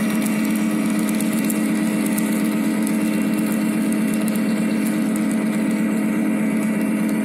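Model freight train running past, its cars rolling on the track with a steady, even mechanical hum.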